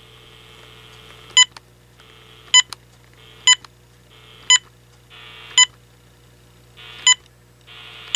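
AT&T 7720 cordless phone handset giving a short key-press beep about once a second as the channel button is pressed repeatedly, stepping to the next channel each time. Patches of hiss come and go between the beeps over a steady low hum.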